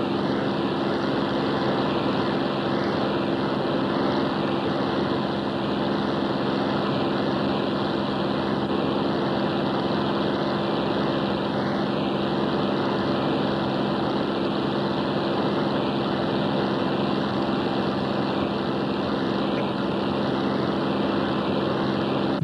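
Spitfire's V12 piston aero-engine and propeller in steady cruise, a constant even drone heard from inside the cockpit.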